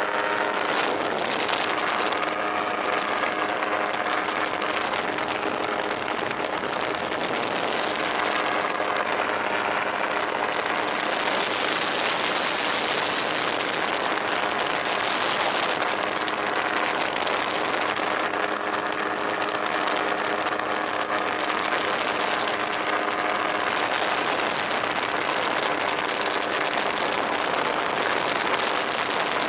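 Fox V4 ultralight aircraft's engine and propeller droning steadily in cruising flight, with wind rushing past the open cockpit over the microphone; the wind swells for a few seconds about halfway through.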